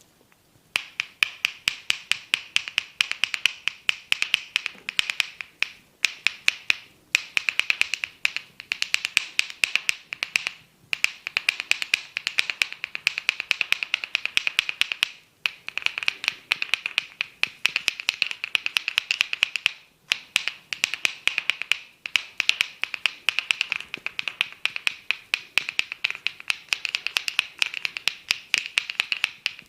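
Fingers scratching vigorously through hair on a scalp, a dense crackle of quick sharp clicks in bouts of a few seconds separated by brief pauses.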